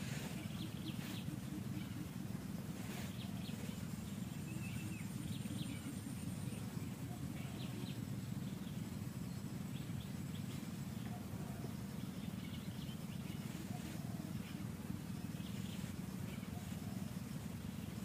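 Steady low rumble of outdoor forest background noise, with scattered short, faint high chirps and a thin high whine from about four to eleven seconds in.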